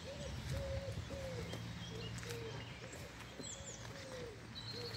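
A pigeon cooing in a steady run of short low notes, about two a second, some falling away at the end. Small songbirds chirp faintly higher up over a low steady rumble.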